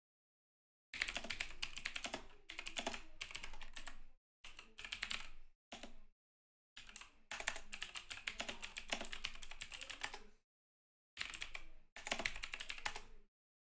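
Typing on a computer keyboard, which a viewer says sounds mechanical: several runs of rapid key clicks, each a second or two long, broken by short silent pauses.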